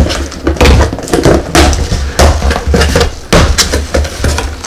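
Cardboard box being torn open by hand, its flaps pulled back: a quick irregular run of loud rips, crinkles and knocks.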